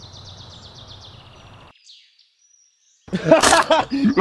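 A bird's rapid high trill over outdoor background, cut off abruptly just under two seconds in. After a second of silence, a loud, rough growling voice starts about three seconds in: a zombie growling as it tears into a body.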